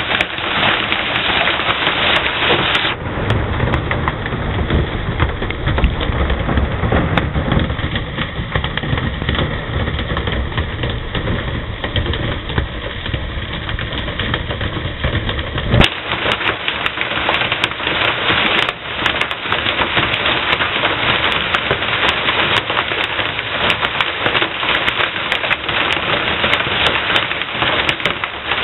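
Heavy rain and hail pelting down, a dense steady hiss peppered with many sharp clicking hailstone impacts, heard from inside a bus shelter. A deep rumble joins in about three seconds in and cuts off abruptly around halfway through.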